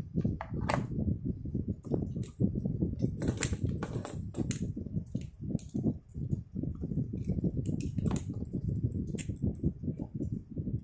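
Plastic pens clicking and clattering as they are picked out of a holder, handled and tapped against the desk, with a ballpoint tried out on a notepad; the clicks come irregularly over a steady low rumble.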